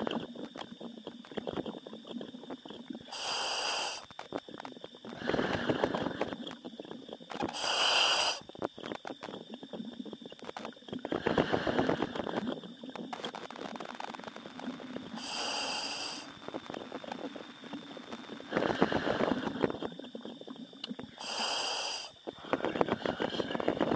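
A diver breathing inside a diving helmet, heard over the helmet's communication line. There are about four slow breaths, each a short high hiss as air is drawn in, followed by a longer rushing exhale.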